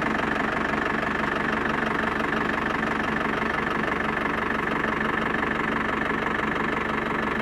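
New Holland LM5040 telehandler's diesel engine idling steadily.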